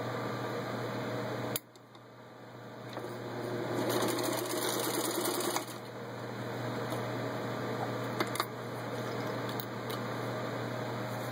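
Singer 15-91 sewing machine, driven by its gear-drive potted motor, stitching through a 1/8-inch leather belt. It stops briefly about a second and a half in, speeds up to its fastest and loudest around four to five seconds in, then drops back to a slower steady run.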